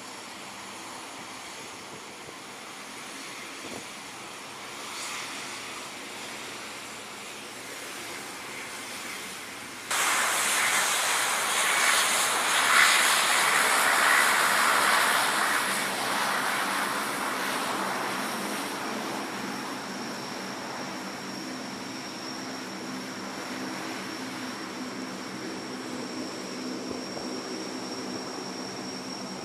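C-130 Hercules four-engine turboprop transports taxiing, engines and propellers running steadily. About ten seconds in the sound jumps much louder as a C-130 passes close. It then eases to a steady propeller hum with a high turbine whine.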